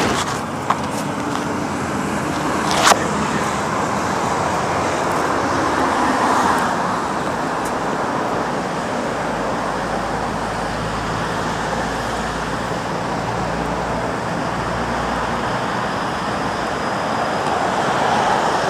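Steady city traffic noise, with a sharp knock about three seconds in and a low rumble swelling in the middle.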